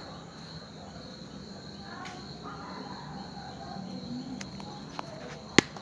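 Crickets trilling as one steady high note, with a single sharp click near the end.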